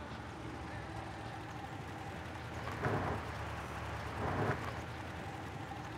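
Vintage GAZ-21 Volga sedan running as it pulls up and stops on a dirt yard, a steady engine-and-tyre noise with a faint hum. Two short, louder rushes of noise come about three and four and a half seconds in.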